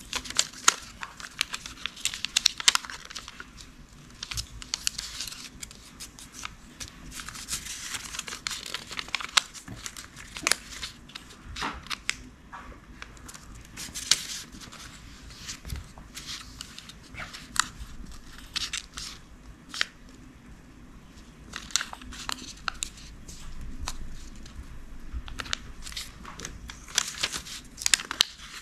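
Origami paper being folded and creased by hand: irregular crinkling and rustling, with short sharp crackles as the folds are pressed flat.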